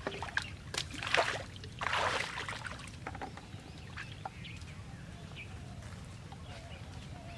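Water splashing and sloshing in several bursts during the first three seconds, then a quieter stretch with faint bird chirps.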